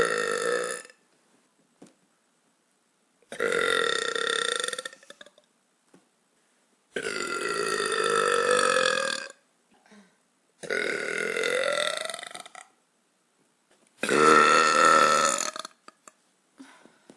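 A woman belching over and over: one burp ending about a second in, then four long, drawn-out belches of about two seconds each, a second or two apart.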